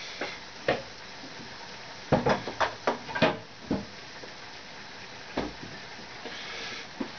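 Kitchen handling sounds: a string of sharp knocks and clatters of dishes and utensils, bunched together about two to four seconds in, with a few single knocks before and after.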